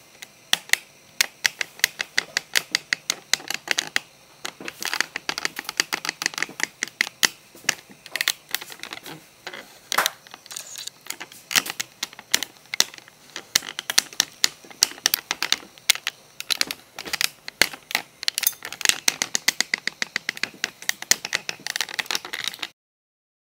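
Rapid typing-like key clicking, several sharp clicks a second in uneven runs, that cuts off suddenly near the end.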